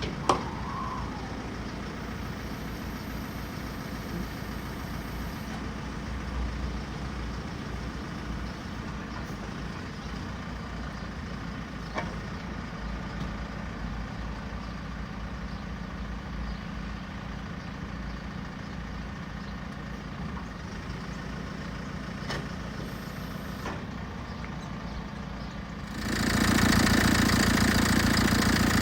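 JCB 3CX backhoe loader's diesel engine idling steadily, with a few light clicks. Near the end it gets much louder and stays loud.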